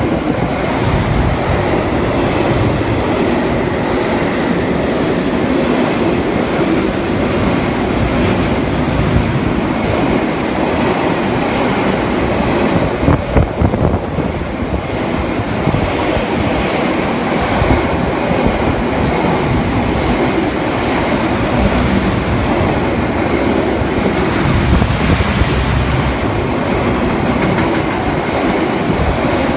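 Freight train of loaded double-deck car-carrier wagons passing close by at speed: a loud, steady rumble of steel wheels on the rails with a running clickety-clack of the wheels over the rail joints.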